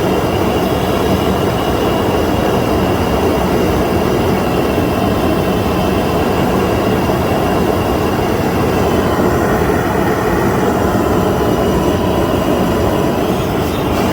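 Propane torch burning with a loud, steady rushing flame.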